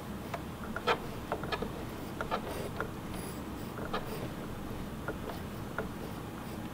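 Small, irregular metallic clicks and ticks from a Singer Heavy Duty sewing machine's needle and hook mechanism, worked slowly by hand to check the hook timing. The loudest click is about a second in. Most come in the first few seconds, with a few spaced out later.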